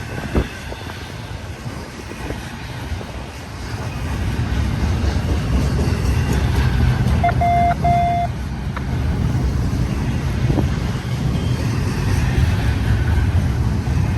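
Deep, steady rumble of a passing BNSF intermodal freight train, growing louder about four seconds in. A short, single-pitched beep of about a second sounds near the middle.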